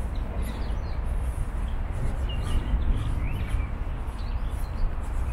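Small birds chirping a few times in the park trees, mostly in the middle of the stretch, over a steady low rumble.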